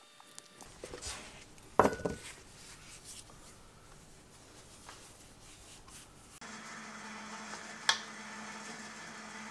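Floured hands rubbing and handling dumpling dough on a silicone baking mat, with one thump about two seconds in. Later a metal spoon clinks once against a stainless steel mixing bowl of dumpling filling, over a low steady hum.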